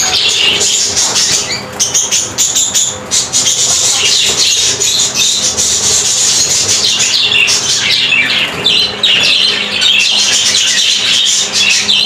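A flock of budgerigars chattering and chirping continuously: a dense, busy warble of many short calls.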